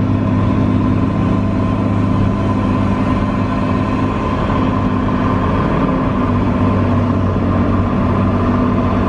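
Diesel engine of a John Deere logging machine running steadily under load, heard from inside its cab, with a constant low drone and a steady higher hum.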